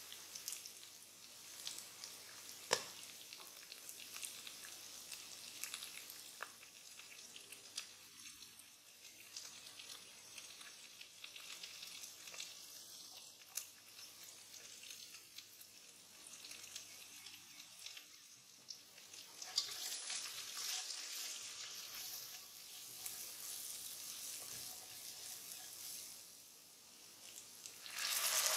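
Diced carrots, peas, onion and bell pepper sizzling in oil in a pot, a steady crackle with scattered pops. The sizzle grows louder about two-thirds of the way through. Near the end hot water poured into the hot pot makes a sudden louder rush.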